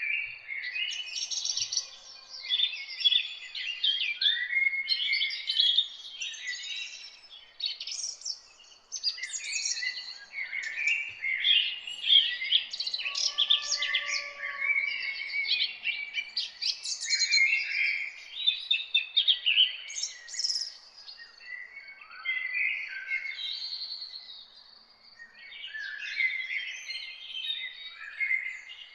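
Many small birds chirping and singing at once in a dense, continuous chorus of quick, high chirps and trills, with a brief lull near the end.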